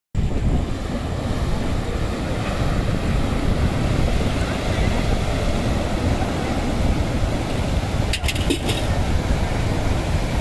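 Sea waves breaking and rushing onto a rocky shore, a steady roar of surf with wind buffeting the microphone.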